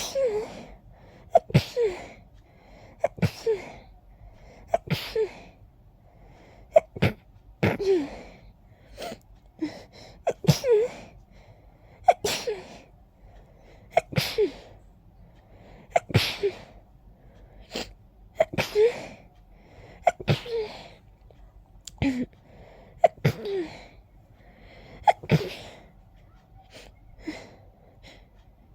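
A person's rapid sneezing fit set off by pollen: a long run of sharp, loud sneezes coming about every one and a half to two seconds, each with a short voiced tail.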